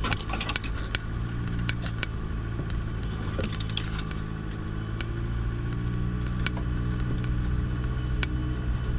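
Vehicle engine running steadily at low revs while driving over a rough, bumpy road, with irregular sharp knocks, rattles and scratches from the jolting.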